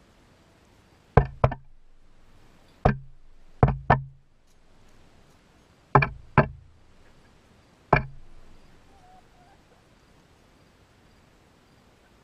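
Chickens pecking at the legs of the camera stand: eight sharp knocks, mostly in quick pairs, each with a brief low ring, stopping about two-thirds of the way through.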